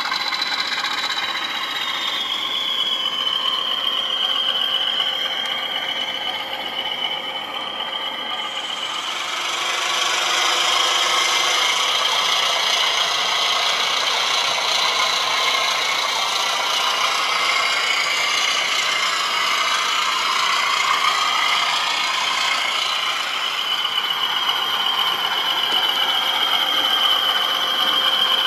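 OO gauge model Class 20 locomotive running along the track with a wagon in tow: a steady high-pitched motor whine over the rattle and rumble of its wheels on the rails, louder from about ten seconds in.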